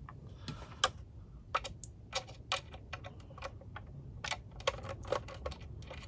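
Light, irregular clicks and taps from handling the hard plastic case of a hard-drive docking station and fitting a small precision screwdriver into its screws.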